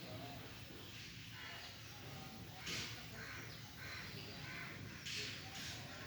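Faint birds calling over and over, with two brief, louder hissing rushes of noise about three seconds in and again about five seconds in.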